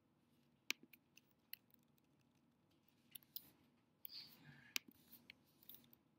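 Faint, scattered clicks of a computer keyboard and mouse as code is selected and run, about ten sharp clicks spread irregularly over near-silent room tone.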